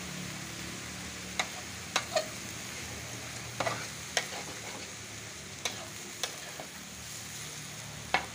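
Vegetables sizzling as they stir-fry in an aluminium wok while a metal spatula tosses them, clanking sharply against the wok several times at uneven intervals, loudest near the end.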